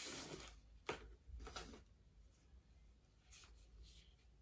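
Faint rustling of a camera body's white protective wrap as the camera is slid out of it, with a light click a little under a second in and a few short rustles after.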